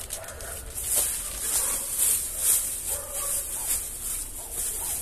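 Plastic bag crinkling and rustling as it is handled, in quick irregular bursts about twice a second.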